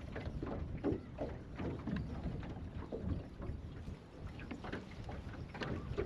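Small waves lapping and slapping irregularly against the hull of a small aluminum fishing boat, a few splashes a second.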